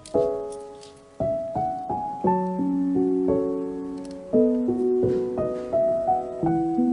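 Background piano music: a gentle melody of single struck notes and chords, each note fading before the next.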